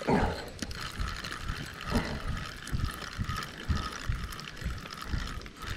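Spinning reel being cranked to wind in line with a fish hooked on the jig: a steady mechanical whirr from the reel with scattered low thumps.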